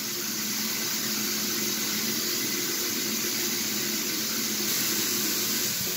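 Bathroom sink tap running steadily, water pouring into the basin.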